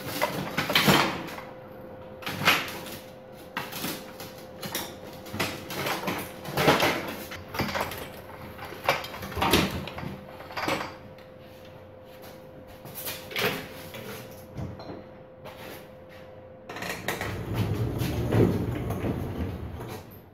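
Irregular knocks, clunks and clatters of metal parts and tools being handled as a motorcycle is taken apart, roughly one every second, over a faint steady hum. Near the end a louder low rumbling noise runs for a few seconds.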